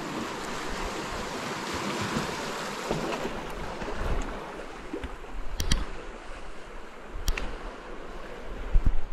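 Sea surf washing against a rock breakwater, a steady rushing, with a few sharp clicks in the second half and low bumps near the end.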